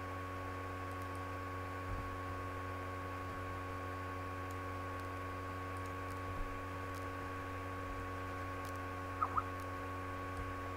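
A steady electrical hum over a low noise floor, made up of several constant tones. Two quick short chirps come about nine seconds in.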